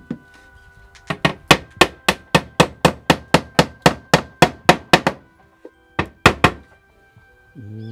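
A hammer strikes wood in a fast, even run of about seventeen blows at roughly four a second, then three more blows after a short pause. Background music plays underneath.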